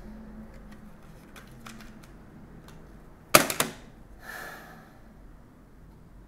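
Plastic CD jewel case being handled: a few small clicks, then one sharp snap a little over three seconds in, followed by a softer rustle.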